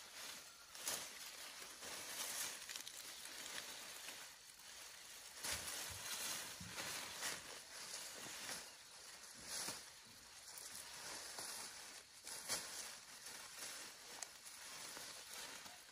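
Sweet potato vines and leaves rustling irregularly as they are pulled up and gathered by hand, with a few brief louder swishes along the way.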